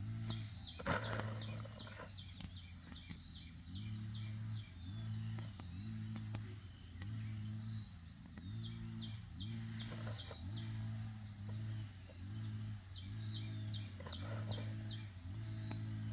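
Small birds chirping in runs of quick high notes, three spells of them, over a low hum that swells and fades about once a second; a single sharp click about a second in.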